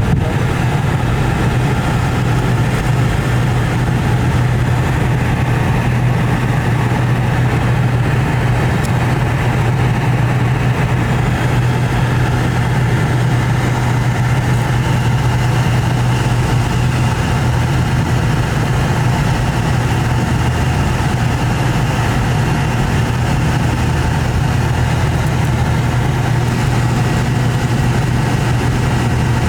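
Steady cabin noise of a Boeing 717: the rear-mounted Rolls-Royce BR715 turbofans running at a constant setting, heard as an even drone with a low hum and no rise or fall.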